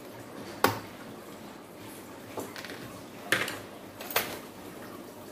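Four sharp clicks and clacks as the parts of an electric fan's motor housing and the tools are handled on a workbench. The loudest comes about half a second in, and the others come near two and a half, three and four seconds.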